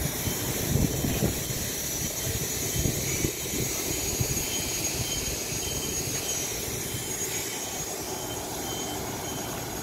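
Street ambience: a low, uneven rumble of vehicles and air, with a faint high beep repeating in the second half.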